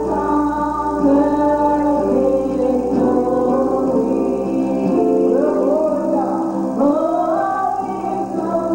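Church gospel singing with instrumental accompaniment, the voices holding long notes that slide between pitches.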